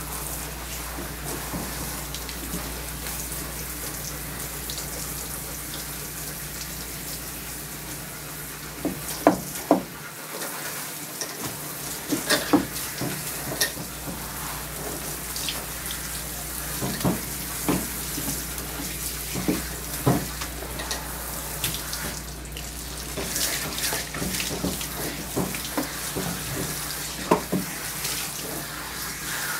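Water spraying from a handheld hose nozzle onto a German Shepherd's wet, lathered coat in a bathing tub as the dog is rinsed: a steady hiss with splashing. Now and then sharp knocks stand out.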